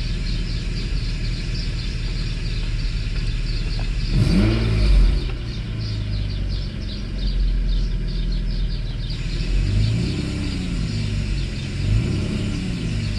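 Mercedes S600 W140's V12 engine idling just after a start and revved up briefly about four seconds in and twice more near the end, testing acceleration through a repaired E-gas throttle module. The exhaust is broken and the secondary air pump is running loudly.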